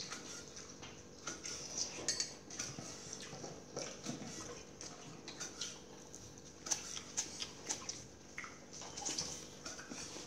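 Cleaver chopping on a wooden chopping board together with a wooden pestle pounding in a mortar: irregular knocks and taps.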